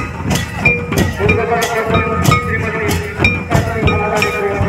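Folk drum troupe playing: barrel drums beaten and large brass hand cymbals clashing in a driving rhythm, about two to three strong strokes a second, over a sustained pitched tone.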